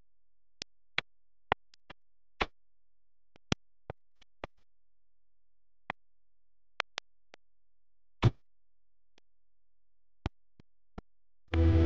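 Scattered sharp clicks and taps against dead silence, with one heavier knock about eight seconds in; loud music starts just before the end.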